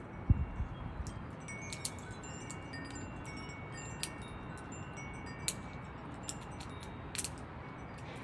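Wind chimes ringing in scattered high metallic tones, each struck note starting with a sharp click and hanging on briefly. There is a low thump just after the start.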